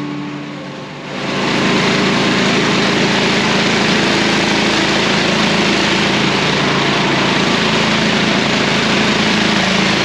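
MechMaxx SM-26 band sawmill's gasoline engine running steadily at cutting speed as the band blade is fed slowly through a log, a loud, even engine note with a hiss from the cut. It comes in suddenly about a second in, as fading music gives way.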